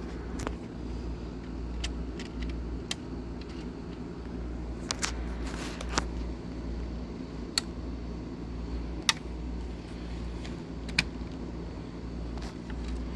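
Model train running around the layout: a steady motor hum, with sharp clicks scattered at irregular intervals.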